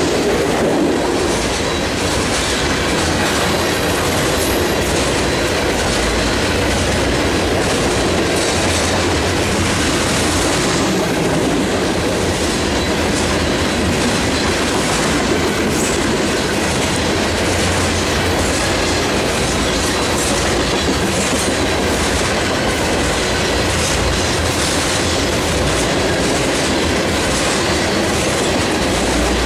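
A train's cars rolling past close by: steady wheel-on-rail noise with faint irregular clicks.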